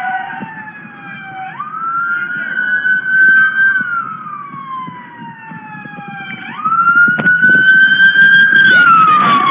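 Emergency vehicle siren wailing: its tone rises quickly, holds, then slides slowly down, twice, the second cycle louder.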